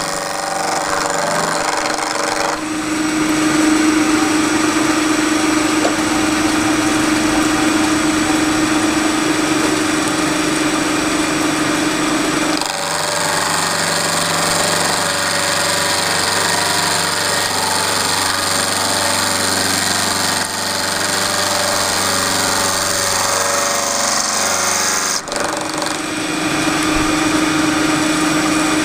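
Milling machine cutting metal with a roughing end mill, taking light cuts: a loud, steady machining noise over the spindle's running. The tone of the cut shifts about three seconds in, again near the middle, and once more near the end.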